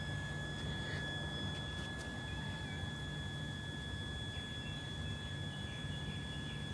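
A steady low hum under a constant high-pitched whine, unchanging throughout, with a few faint chirps in the middle.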